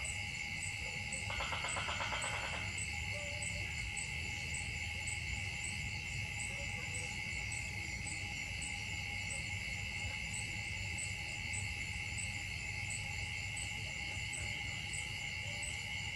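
Insects droning in a steady high whine, with a higher chirp pulsing about twice a second over it. A brief rasping burst sounds about a second and a half in.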